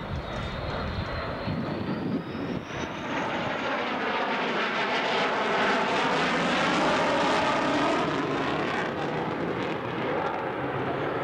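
A Rockwell B-1B Lancer's four turbofan engines running as it flies by low. The jet noise builds to its loudest about two-thirds of the way through with a sweeping, phasing quality, then eases a little.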